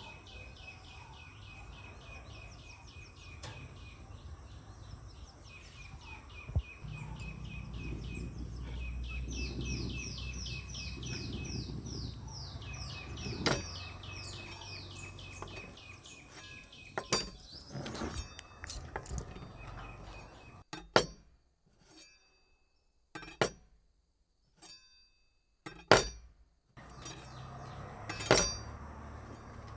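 A bird chirps in quick repeated notes for the first half, while water sloshes as tomatoes are washed by hand in a steel bowl. Then come sharp clinks of steel bowls and plates and a knife tapping on a steel plate as a tomato is cut, with abrupt gaps of silence between.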